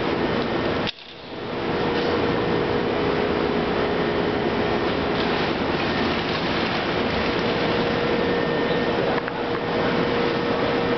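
Self-piercing rivet machine running, a steady mechanical hum and whir from its motor and drive with a constant tone. The sound drops out sharply about a second in and builds back up within a second.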